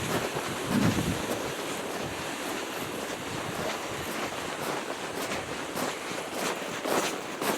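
Steady wind noise on the microphone, with a few soft crunches near the end.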